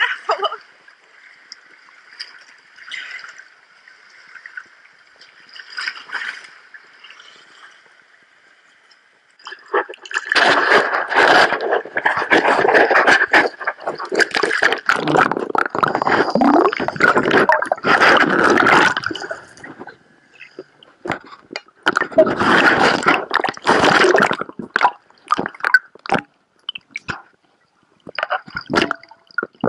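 Sea water sloshing, splashing and gurgling over a camera held at and just below the surface. It is faint for the first several seconds, then loud and churning from about ten seconds in until nearly twenty, and again for a couple of seconds around twenty-three seconds.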